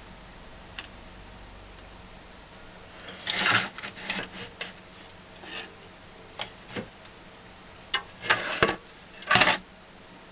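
Irregular clicks, knocks and short rustles of objects being handled. They come in scattered clusters, loudest around the middle and again near the end.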